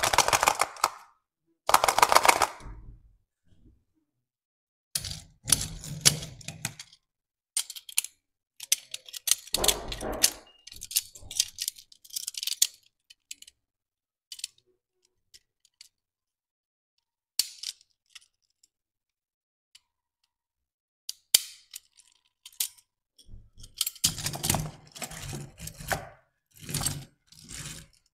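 Handling noise from unwrapping and handling a die-cast toy truck: the plastic wrapper crinkles, and small clicks and taps come as the metal-and-plastic truck parts are handled and set in the cardboard box. The sounds come in short bursts with silent gaps between them.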